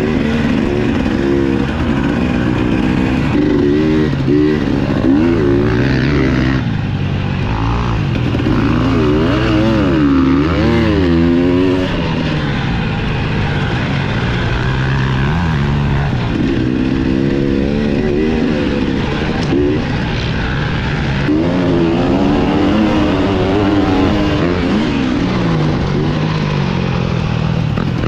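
Dirt bike engine being ridden hard around a motocross track, its pitch rising and falling over and over with throttle and gear changes.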